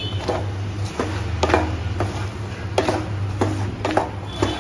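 Spatula scraping and knocking against a nonstick pan while stirring makhana coated in sticky jaggery syrup and sesame seeds, in irregular strokes, over a steady low hum.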